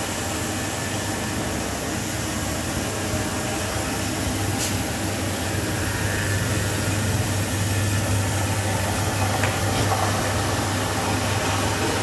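Electric masala pulverizer (spice grinding machine with cyclone collector) running while it grinds coriander seed into powder: a steady low hum under an even rushing noise.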